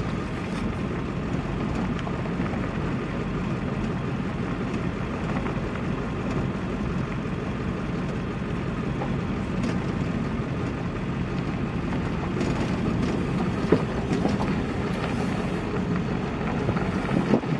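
Steady road and engine noise inside a moving vehicle's cabin, with one short sharp knock about three-quarters of the way through.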